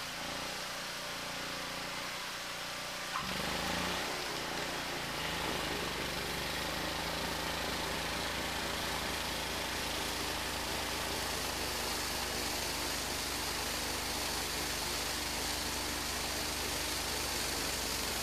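Eliet Snowbob 9018T snowblower engine running steadily. A click about three seconds in, after which the machine sounds heavier. From about five seconds a steady rushing hiss joins as it throws snow.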